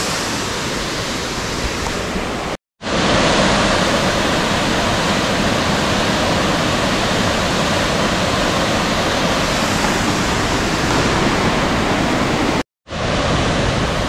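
Steady, loud rush of a mountain waterfall pouring into a rock plunge pool. It cuts out abruptly for a split second twice, about three seconds in and near the end, and is a little louder after the first break.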